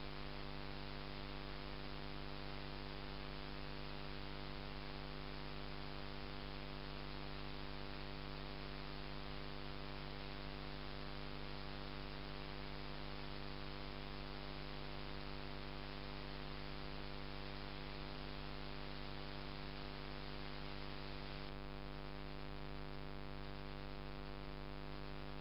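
Steady electrical hum with a layer of hiss, unchanging throughout: recording-chain noise rather than any sound of the scene. The hiss eases slightly near the end.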